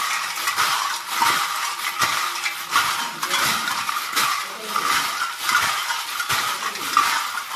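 Crisp fried banana chips tossed by hand in a stainless steel bowl: a continuous dry rattling and clattering of chips against each other and the metal.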